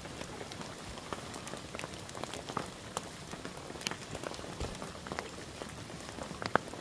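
Campfire crackling, with irregular sharp pops and one louder pop near the end.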